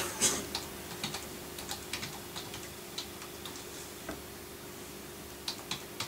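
Typing on a slim low-profile computer keyboard: irregular keystrokes, busier in the first three seconds, then a pause and two more taps near the end.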